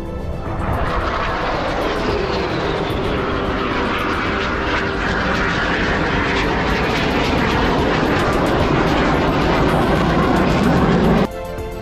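Fighter jet flying past: a steady jet engine rush that builds in loudness, with a whine falling in pitch a few seconds in. It cuts off suddenly near the end.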